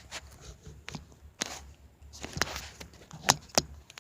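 Handling noise: a few irregular knocks and short scrapes, about five of them spread unevenly, with quiet rustling between.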